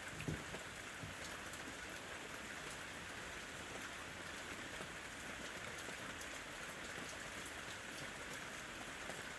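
Steady rain falling, an even hiss with scattered individual drop ticks and a single soft thump a fraction of a second in.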